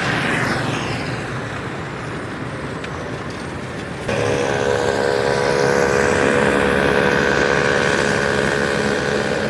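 Loud motor vehicle noise: a vehicle passing close by in the first second, then from about four seconds in a steady engine or machine drone with a held tone on top, cutting off suddenly at the end.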